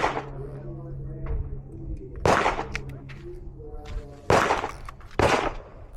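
Four pistol shots from a Smith & Wesson M&P 2.0: one right at the start, one about two seconds later, and two more near the end less than a second apart, each with a short echo. Faint music plays underneath.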